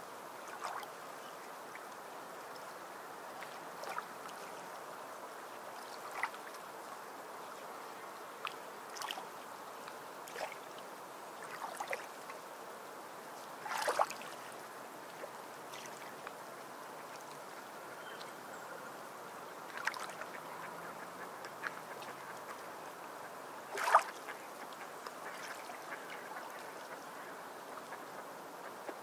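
A drawing tool scratching and scraping over a small paper tile in short strokes over a soft steady hiss, with the two sharpest scrapes near the middle and later on.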